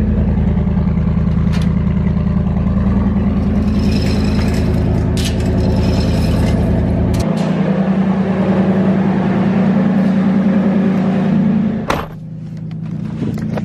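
Lifted Chevy pickup's engine idling steadily with an even exhaust pulse, just fired up on a weak, nearly dead battery. The deep rumble drops away about seven seconds in, leaving a higher hum, and the sound cuts off abruptly near the end.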